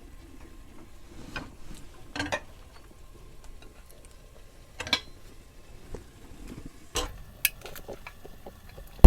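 A spoon clinking and scraping against a cooking pot now and then, about six short knocks, as fried chicken pieces are added to the masala and stirred.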